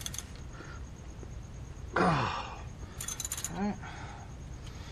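Steel hand tools clinking: a quick cluster of metallic clicks about three seconds in as a wrench works the brake caliper bolts. About two seconds in comes a loud, short, falling vocal grunt.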